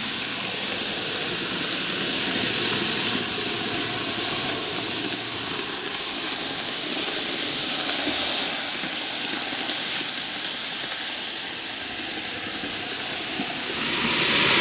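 N-gauge model electric train of the Keihan Railway running on curved model track: a steady rushing rattle of its wheels on the rails and its motor, loudest as it passes close by and easing off a few seconds before the end.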